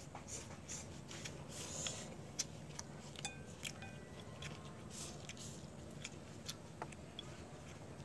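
Two people eating stir-fried instant noodles with chopsticks: slurping and chewing, with scattered sharp clicks throughout.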